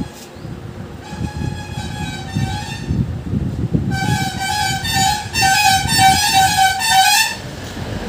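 A vehicle horn sounds faintly from about a second in, then loudly and steadily from about four seconds in until just past seven, its pitch wavering. Small low knocks and clatter of hand work on the engine parts run underneath.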